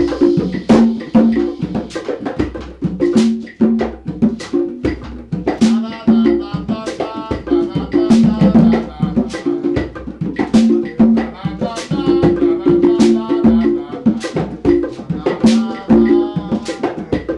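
Conga drums played in a live hand-drum jam: a steady rhythm of open tones at two pitches, mixed with many sharp, crisp strikes.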